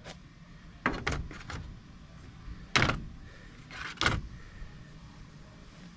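A handful of short hisses of compressed air as an air chuck is pressed onto the valve stem of a spare tyre being aired up, over a steady low hum.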